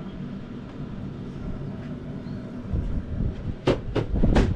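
Metal door of a Pit Boss Platinum Brunswick vertical pellet smoker being swung shut and latched: a few dull thuds, then a quick series of sharp metal clunks and clicks near the end, over a steady low hum.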